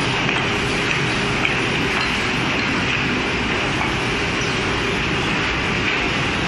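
Steady mechanical noise of woodworking machinery running, an even hiss and hum with no distinct cuts.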